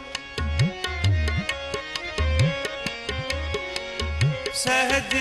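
Tabla playing a steady rhythmic pattern: crisp, evenly spaced strokes on the right-hand drum and deep left-hand bass strokes that glide upward in pitch, over sustained held melody notes. A singing voice comes back in right at the end.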